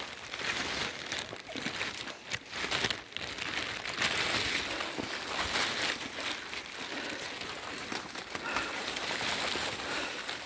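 Rustling and scuffing of footsteps and a rain jacket brushing through wet moss-forest undergrowth on a downhill walk, irregular and noisy, over a steady hiss.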